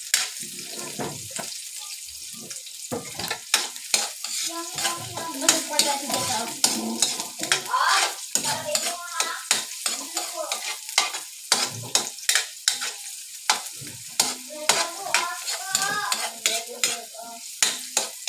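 Chopped onion and garlic sizzling in hot oil in a metal wok, stirred by a metal spatula that scrapes and clicks against the pan many times.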